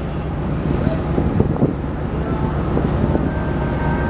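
Steady low rumble of a berthing ferry's engines under wind buffeting the microphone, with a few short knocks early on and a thin steady machinery whine that joins about two seconds in.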